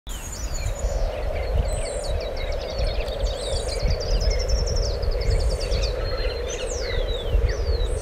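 Wild birds calling: rapid high trills and short downward-sweeping calls, over a steady low background rumble of outdoor noise.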